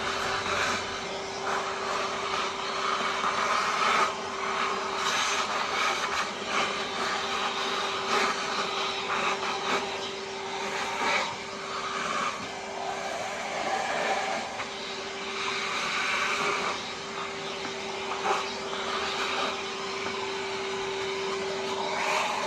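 A motor running with a steady, unchanging hum, with scattered knocks and clatter over it.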